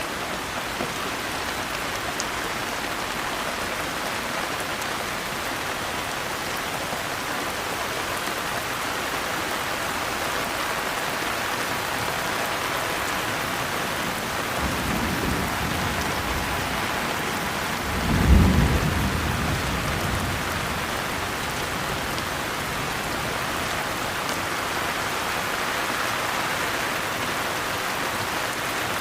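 Steady heavy rain, with a roll of thunder halfway through: a low rumble builds, then a louder crack and rumble peaks and fades over a few seconds.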